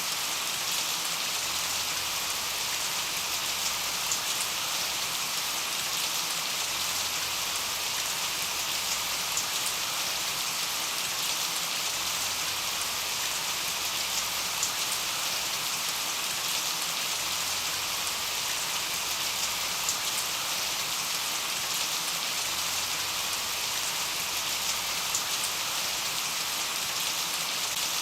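Steady rain, falling evenly with many small drop ticks and no thunder.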